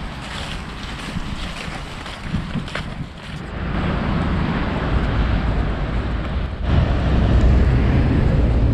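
Wind buffeting a small action camera's microphone, a rough rushing noise with a heavy low rumble, with a few soft footfalls heard at first. About three seconds in it becomes louder and more rumbling, and a stronger gust comes shortly before the end.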